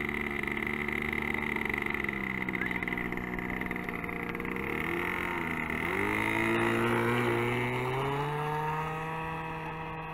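O.S. 40 nitro glow engine on a radio-controlled model plane, running steadily at low throttle, then opened up about six seconds in, its note rising and holding higher for the takeoff run.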